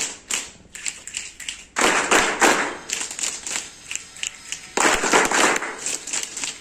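A group of people clapping: a few scattered claps, then two bursts of applause about three seconds apart, each lasting about a second.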